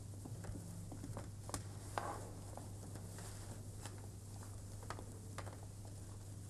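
Faint rustling and scattered small clicks of clothing and bodies moving, the loudest rustle about two seconds in, over a steady low hum.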